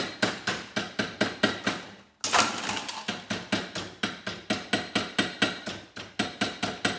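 Rapid light hammer taps, about five a second, striking a small plastic relay box to break its housing open. A short pause about two seconds in is followed by a brief, louder noisy burst, then the tapping carries on.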